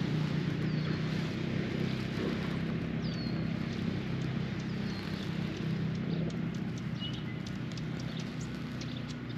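Waterside ambience: a steady low hum runs under a bird's short, high falling chirps, which repeat about every two seconds. In the second half a run of sharp ticks and a few more chirps come in.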